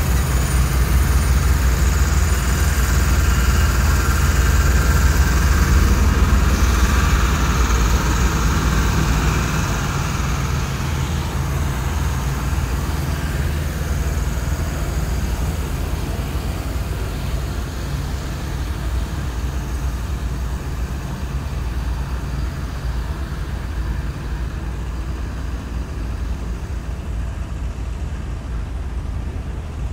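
Heavy-haul diesel truck towing a multi-axle low trailer passes at walking pace, its engine running with a steady low drone. The sound fades over the second half as the truck drives away down the road.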